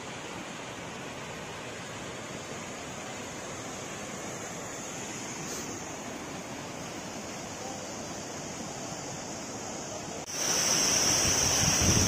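Steady rush of water from a mountain waterfall and its stream. About ten seconds in it suddenly becomes much louder and hissier, as the falling water is heard close up.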